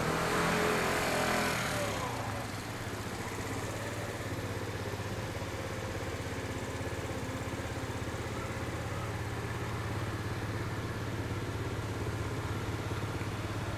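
Ducati 1299 Panigale S's Superquadro L-twin engine idling steadily. During the first two seconds a passing vehicle is louder than it, its pitch dropping as it goes by.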